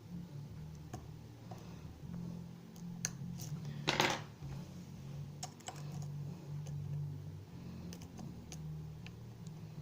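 Small metallic clicks and scrapes of a lock pick and tension tool working the pins of a pin-tumbler challenge lock, with a louder scrape about four seconds in. The picker suspects the lock holds T-pins. A low steady hum runs underneath.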